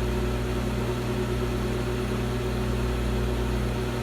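A 25-litre, 900-watt digital grill microwave oven running with a steady hum.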